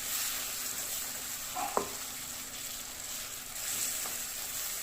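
Chopped tomatoes frying in oil with onion and spice masala in a pan, sizzling steadily while being stirred and sautéed down to a soft gravy base.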